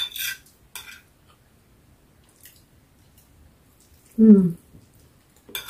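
Eating sounds: a spoon and fork clicking and scraping against a paper plate in a few short clicks, with one short voiced 'mm' about four seconds in.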